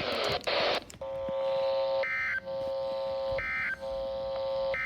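Emergency Alert System digital data bursts: three short, high warbling bursts about 1.4 s apart, typical of the end-of-message code that closes a weather warning. A steady buzzing tone fills the gaps between the bursts.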